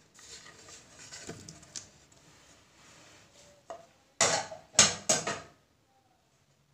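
Peeled orange slices sliding off a plate into a blender jug with a soft scraping rustle, then three loud, short clatters of kitchenware about four to five and a half seconds in.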